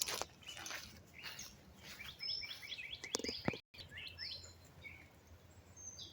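Small birds chirping, a string of short, quick high chirps and calls, with a few light clicks among them.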